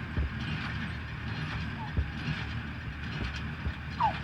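Hay bale elevator running: its chain and pulleys rattle steadily, with a few dull thumps.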